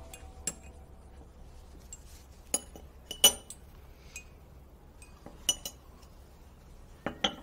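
A metal teaspoon and china teacups and saucers clinking: a scatter of separate bright clinks from stirring and handling the cups, the loudest about three seconds in, a pair about five and a half seconds in and another pair near the end.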